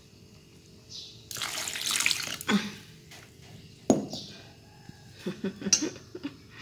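Water poured into a pot of raw snakehead fish, pickled bamboo shoots and herbs, splashing for about a second and a half starting just over a second in. A sharp knock follows near the middle, then a few light knocks.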